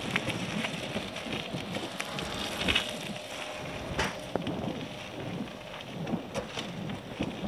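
Wind buffeting a handheld camera's microphone, an uneven crackling rush with a few sharp clicks, the clearest about four seconds in.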